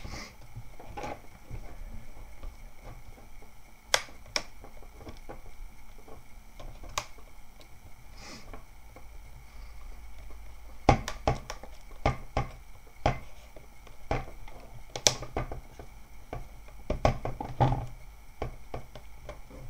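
Plastic display bezel of a ThinkPad T400s laptop being pressed and snapped onto the screen: sharp plastic clicks, a few scattered at first, then many in quick succession in the second half as the lower part is worked into its seat.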